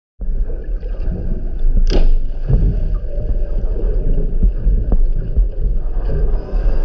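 Underwater sound picked up by a GoPro lowered into the sea: a steady low rumble with water noise, a sharp knock about two seconds in, and faint high wavering tones coming in near the end.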